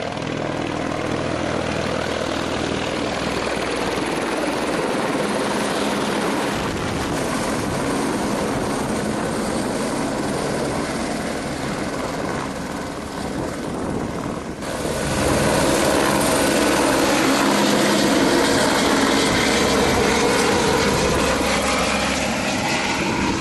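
Airbus AS350 (H125) single-engine helicopter running close by, its rotor and turbine making a continuous din. About 15 seconds in, the sound steps suddenly louder.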